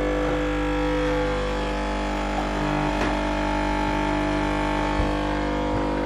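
Capsule espresso machine's pump running with a steady buzz as it brews a shot of coffee into a cup.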